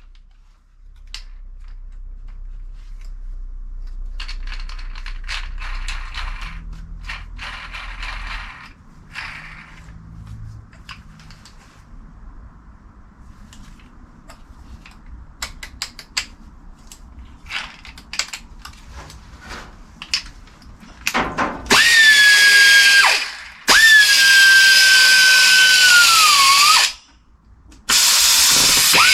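Scattered metal taps and clicks over a low hum. About two-thirds of the way in, a pneumatic grinder starts and runs three times with a loud high whine, its pitch dropping as it bites into the metal.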